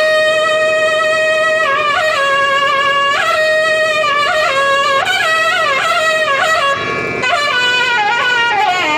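Nadaswaram playing a solo melodic line in raga Sindhu Bhairavi. It holds a long note, then moves through quick bending ornamented phrases, and slides downward near the end.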